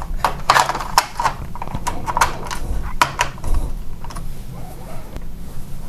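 Typing on a TRS-80 Color Computer keyboard: irregular key clicks, several a second, over a faint low hum.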